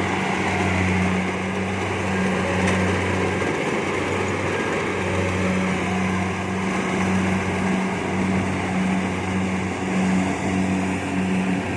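Kubota DC70 Plus combine harvester's diesel engine running steadily while harvesting rice: a continuous low drone with a slight regular pulsing, over a broad mechanical noise.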